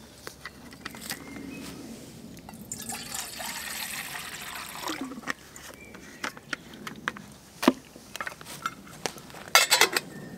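Water poured into an empty stainless steel camping saucepan for about two seconds, filling it for a parboil. Near the end, a quick run of metal clinks as the lid is set on the pan.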